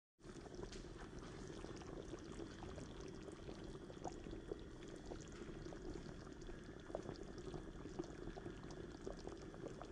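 Thick bean curry (mochai kottai kara kulambu) simmering in an aluminium pan on a gas stove: a faint, steady bubbling with many small pops.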